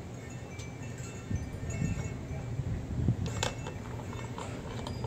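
Wind chimes ringing irregularly in a light breeze, short bright tones at several pitches over a low steady rumble. A brief clatter of clicks about three and a half seconds in, as the cat scrambles into the plastic ball-track toy bowl.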